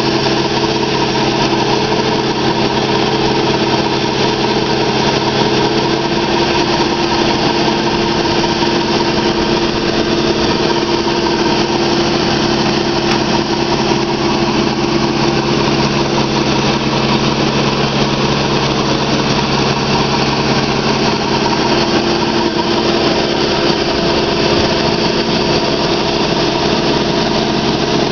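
High-pressure water jetter running steadily: a constant engine and pump drone under the dense hiss of water blasting from a pipe-cleaning jet nozzle.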